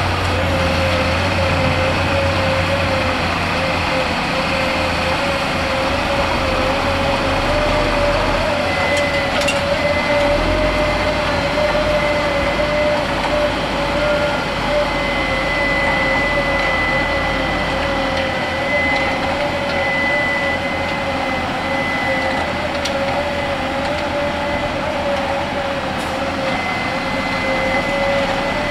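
Tractor diesel engine running steadily as it hauls a silage wagon, with a constant, slightly wavering whine over the engine noise and faint higher whistles.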